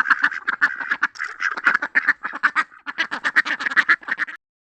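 Ducks quacking in a rapid, dense run of calls, cutting off suddenly a little over four seconds in.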